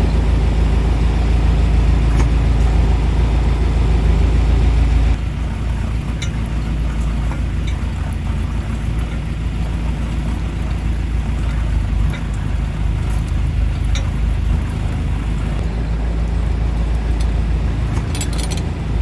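Fishing boat's engine running steadily, a little quieter from about five seconds in.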